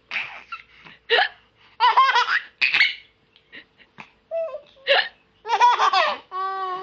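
A woman's sudden hiccups, each answered by a baby's bursts of laughter. The laughter comes in several choppy spells, and the last ends in one long held note.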